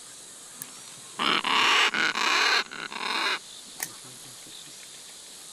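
Great green macaw squawking harshly and loudly, about three raucous calls run together over some two seconds starting about a second in: the distress call of a bird being held and handled.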